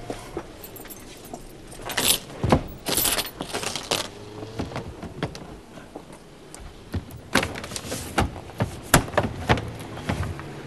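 Handling clatter at an office counter: rustling and knocking a couple of seconds in, then a run of sharp clicks and rattles as the counter window's blind is pushed up.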